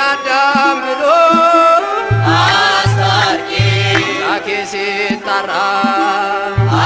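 Ethiopian Orthodox mezmur (Amharic hymn) music: a gliding melodic line over low drum beats that come in short groups.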